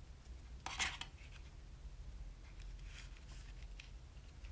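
Faint handling sounds of small objects: a short scrape about a second in, then a few soft rubs.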